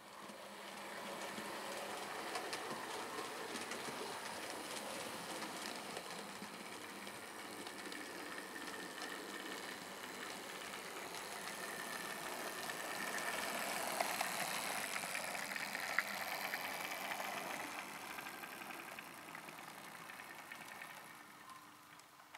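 Hornby OO gauge Stanier Class 4P model locomotive running along the track: a motor whirr with fine wheel clicks over the rail joints. It grows louder, peaks about two-thirds through with two sharper clicks, then fades away as it moves off.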